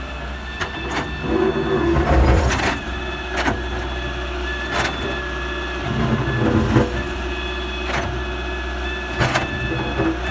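Diesel engine of an excavator running steadily, with irregular metallic knocks and clanks from the digging and loading.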